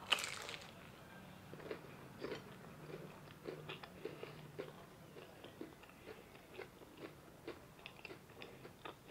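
A bite into a fried chicken spring roll, loudest right at the start, then chewing with many small irregular crunches and mouth clicks.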